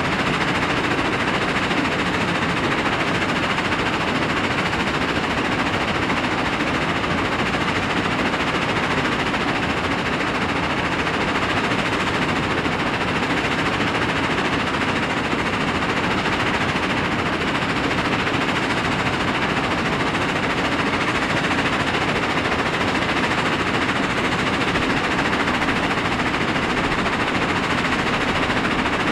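Crushed rock pouring onto the steel mesh deck of a vibrating screen, a dense, continuous clatter of stones on steel.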